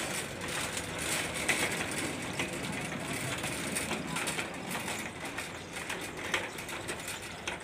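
Indistinct shop background noise: a steady noisy hum with faint, unclear voices and a few small clicks.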